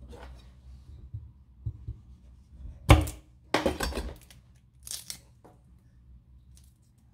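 A garlic clove being peeled by hand, its papery skin crackling and tearing in short bursts, with one sharp knock about three seconds in.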